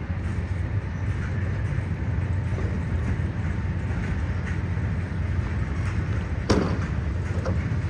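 Steady low rumble of a moving vehicle, with one sharp knock about six and a half seconds in.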